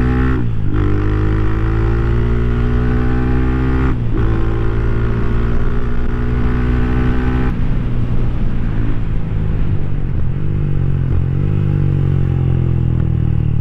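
Rusi Classic 250's LX166FMM 250cc single-cylinder engine under way, climbing in pitch with short breaks about half a second, four seconds and seven and a half seconds in as it shifts up, then running steadier and lower over the last few seconds.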